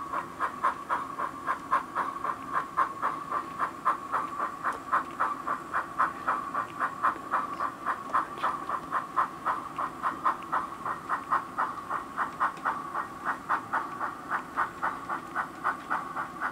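Sound-fitted model GWR 0-6-0 steam locomotive chuffing steadily through its onboard speaker, at an even rate of about four or five beats a second with a light hiss.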